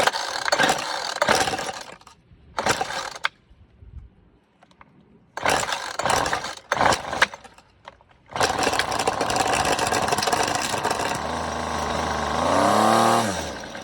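Weed Eater FeatherLight FL26 string trimmer's small two-stroke engine being pull-started on full choke: several recoil-starter pulls, then about eight seconds in it fires and runs for a few seconds before its pitch falls and it dies. Its brief running shows the new carburetor is good.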